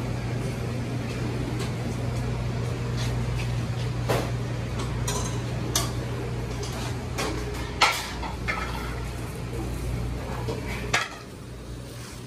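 Metal pans and utensils clattering at a kitchen prep counter: a handful of sharp clanks over a steady low hum of kitchen equipment. The hum drops away near the end.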